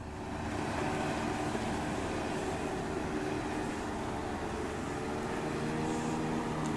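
Faint, steady drone of a motorboat engine with a slight drift in pitch, over a wash of lake and open-air noise.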